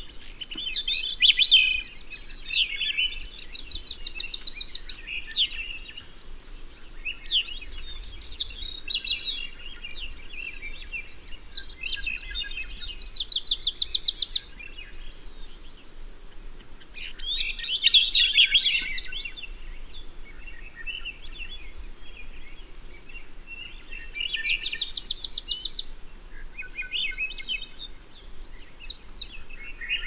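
Several songbirds singing. One repeats a fast, high trill that grows louder over about a second and a half, three times, roughly ten seconds apart. Other birds add shorter jumbled phrases in between, over a faint steady low background noise.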